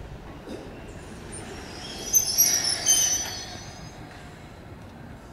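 Train wheels squealing on the rails: a cluster of shrill, high-pitched squeals rises about two seconds in and fades out by about four seconds, over the steady low running noise of an Izuhakone Railway Daiyuzan Line electric train.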